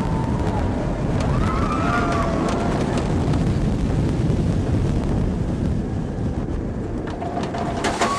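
Wind rushing over the microphone and the rumble of an inverted steel roller coaster train running along its track, heard from a rider's seat. A few short high, wavering sounds ride over it, and there are sharp knocks near the end.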